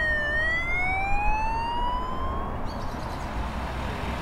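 Police car siren wailing: one long tone slides down in pitch, then rises again and cuts off a little under three seconds in. A steady rushing noise follows, over a low rumble.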